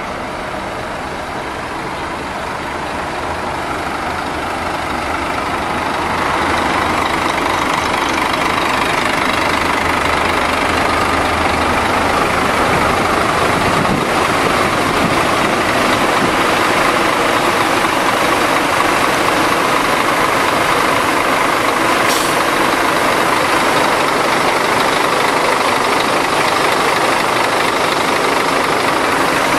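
Scania K410 coach's rear-mounted diesel engine idling steadily, growing louder over the first six seconds as the rear engine grille is approached.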